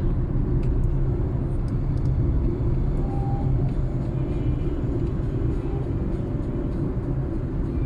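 Steady low rumble of a car, its engine and road noise, with no change in level.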